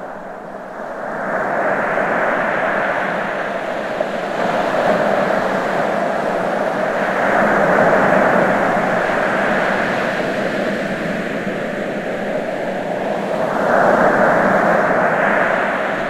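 Ocean surf washing in, a steady rush of water that swells and fades every few seconds as waves come in and draw back.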